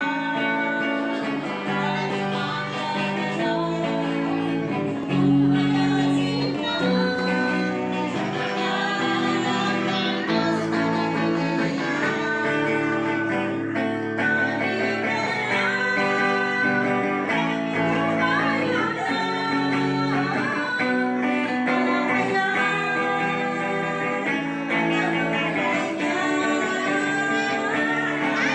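Two women singing a worship song with an electric guitar accompanying them, one voice through a handheld microphone. The music runs at a steady level without breaks.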